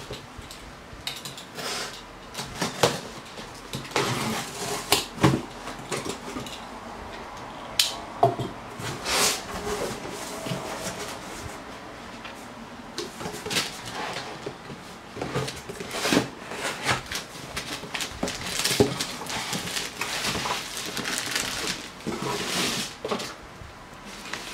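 Cardboard shipping box being opened and unpacked by hand: irregular rustling, scraping and knocks of cardboard flaps, packing material and the inner box being handled and lifted out.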